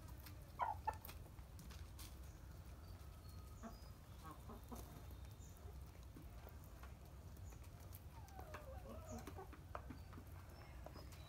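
A flock of chickens clucking softly while feeding, with one short, louder call about half a second in and a run of low clucks near the end. Scattered light ticks of beaks pecking at grain in a trough sound over a low steady rumble.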